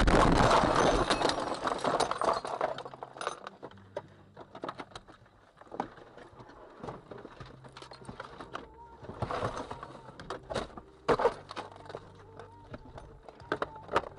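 A crashed car coming to rest: a loud scraping rush that dies away over the first three seconds or so, then scattered clinks, ticks and rattles of loose glass and debris settling inside the wrecked car.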